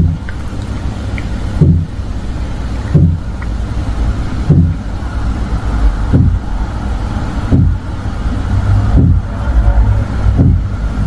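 Repeated dull, booming thuds, about eight of them at roughly one every one and a half seconds, over a steady low hum: the 'gon gon gon' noise that carries through an apartment building at night from an unidentified neighbouring unit.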